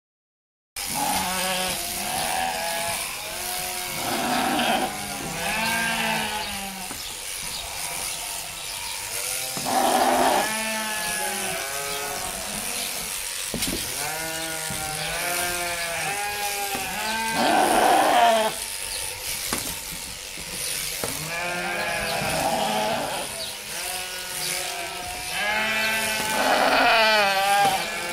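A flock of sheep bleating, many voices overlapping and calling again and again, with a few louder bleats among them. The sound starts abruptly about a second in.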